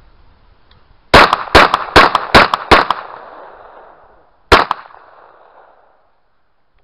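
MP-78-9TM traumatic pistol firing powerful 9 mm P.A. rubber-bullet cartridges. Five shots come in quick succession about a second in, and a sixth follows about two seconds later, each with an echo trailing off.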